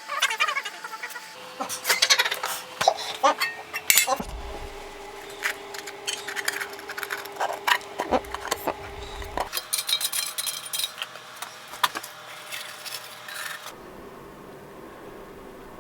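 Small metal tools and parts clinking and clicking as they are handled on a workbench, with a steady low hum through the middle few seconds.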